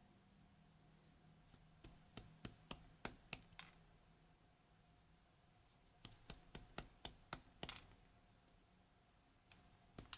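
Sharp clicks from a Kaba Gemini S dimple lock being worked by hand with its tools, in two quick runs of about eight or nine clicks each, then two single clicks near the end.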